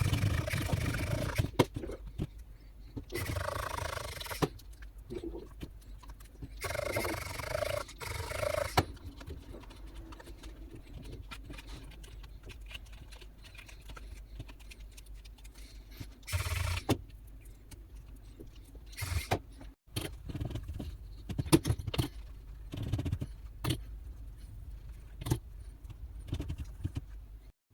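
Handling noises from work on a tablet: several spells of rustling and scraping in the first nine seconds, then scattered light clicks and taps.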